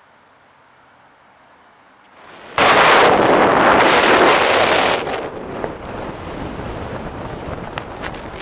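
Wind rushing over the microphone of a moving car, starting suddenly a couple of seconds in and very loud for about two and a half seconds. It then drops to a steadier, quieter road and cabin noise with scattered light ticks.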